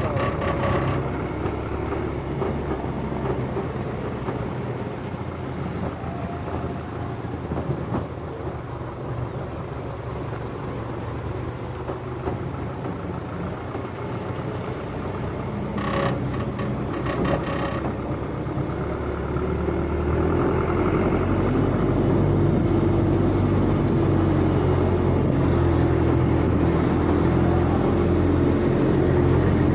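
A motor vehicle's engine running steadily. It grows louder about two-thirds of the way through, and a few brief clicks come near the start and around the middle.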